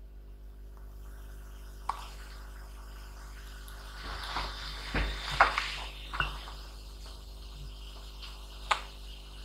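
Steady low electrical hum with a few faint clicks and taps, as multimeter probe tips are moved and set down on a laptop motherboard.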